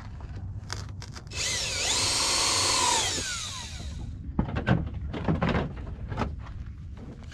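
Cordless drill running for about two seconds while drilling a pilot hole in the plastic bumper cover, its motor pitch falling as the trigger is released. A few knocks and rattles follow.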